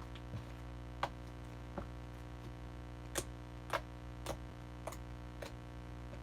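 Slime being squished and poked by hand, giving sharp clicking pops: about seven, irregularly spaced, over a steady background hum.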